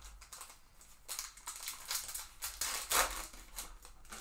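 Foil wrapper of a trading-card pack crinkling and tearing as the pack is ripped open and the cards are pulled out. It is a dense run of rustles, loudest about three seconds in.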